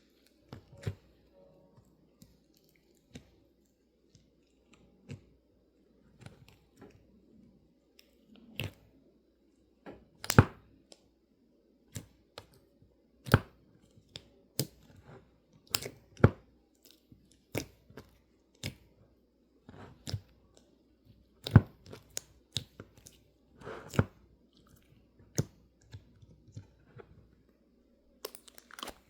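Slime being pressed and squished by hand, giving sharp crackling clicks and pops at irregular intervals, about one a second, over a faint low hum.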